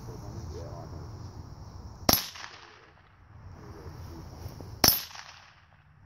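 Two shots from a .22, almost three seconds apart, each a sharp crack with a brief tail dying away after it.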